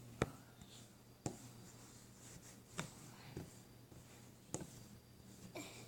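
Five sharp clicks or taps at irregular intervals over a low steady hum, like small objects being handled.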